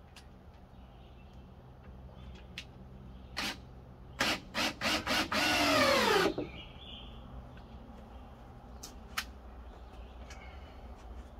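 Cordless drill driving a screw into a wooden frame: three or four short bursts about four seconds in, then a longer run of about a second whose pitch drops near the end. A few light knocks before and after.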